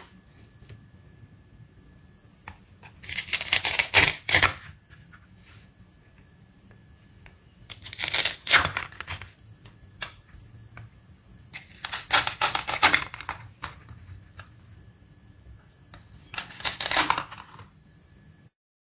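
Velcro on plastic toy fruits ripping apart as each fruit is split into halves: four separate rips about four seconds apart, each lasting about a second. Light clicks of plastic pieces come between them.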